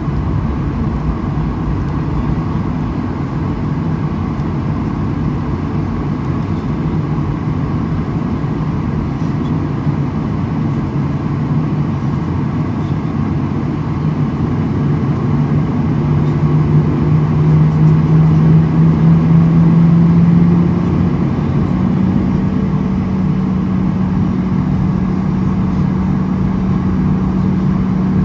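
Cabin drone of a Boeing 737-800 taxiing, its CFM56-7B jet engines turning at low thrust. A low hum rises slowly in pitch and grows louder past the middle, then steps up slightly and holds steady.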